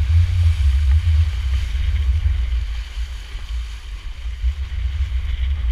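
Wind buffeting the microphone in a heavy, fluctuating rumble, over the rush and hiss of water along the hulls of a sailing Rowcruiser outrigger rowboat moving fast under sail. The rumble eases briefly around the middle.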